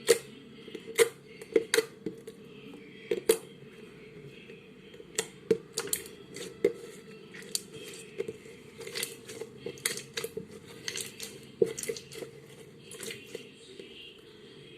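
Slime being squeezed and poked by hand, giving irregular sharp pops and clicks.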